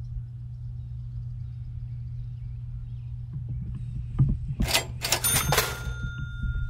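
Two short bursts of splashing about two-thirds of the way through, with scattered knocks around them, over a steady low hum. A thin, steady high tone starts right after the splashing and holds to the end.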